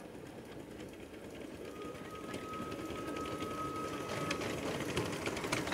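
Miniature 7¼-inch gauge steam locomotive hauling a loaded passenger train toward the listener, its quick rhythmic mechanical beat growing steadily louder as it approaches.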